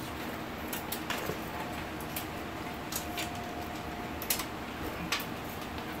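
Front-panel cables being pulled through a cable-routing hole in a steel PC case: a handful of light clicks and rustles over a steady background hiss.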